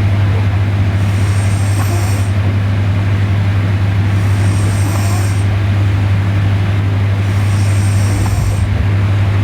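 A sleeping girl breathing in a slow snoring rhythm, a hissy breath swelling about every three seconds, over a loud steady low hum.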